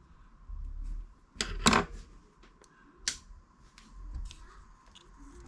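Clicks and handling of the opened Ben 10 basic Omnitrix toy's plastic parts: a loudest cluster of clicks about one and a half seconds in, another sharp click about three seconds in, and fainter ticks between.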